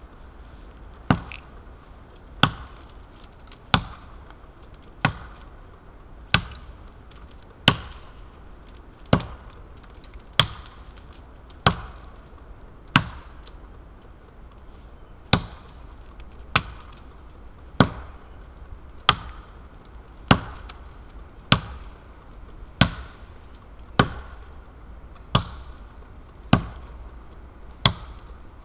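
Wetterlings Forest Axe, a handmade Swedish axe on a hickory handle, chopping into the trunk of a dead standing tree: about twenty sharp chops, one every second or so, with a short pause about halfway.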